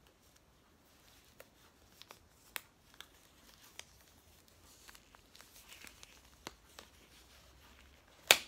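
Top Glove latex exam glove being pulled on and worked over the hand: soft stretching and rubbing of the latex with scattered small snaps. Near the end there is one loud, sharp snap as the cuff is let go at the wrist.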